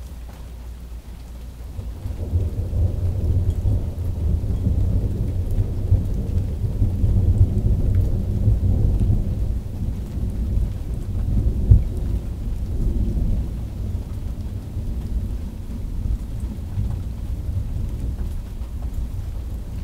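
Thunder rumbling: a long, low roll that swells about two seconds in and rumbles on, with one sharp, louder crack a little past the middle.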